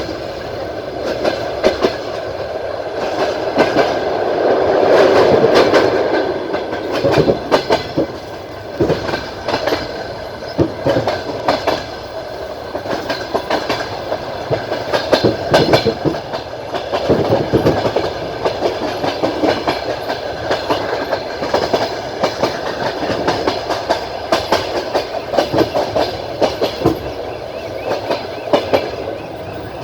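A passenger train's carriage wheels clicking over the rail joints, over the steady running noise of the moving train. The clicks come irregularly, and the noise swells for a couple of seconds about four seconds in.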